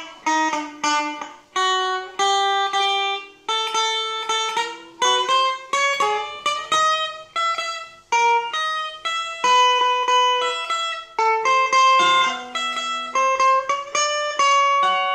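Electric guitar played solo with a clean tone: a melody of picked single notes and pairs of notes, about two or three a second, each ringing and fading before the next. The piece is meant to depict pattering rain.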